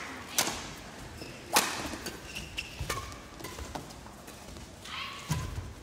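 Badminton rally: rackets smack the shuttlecock several times, a second or more apart, with short shoe squeaks on the court floor between the hits.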